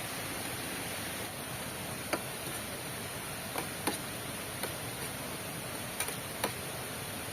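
Steady hiss of heavy rain, with a few sharp ticks scattered through it, about six, irregularly spaced.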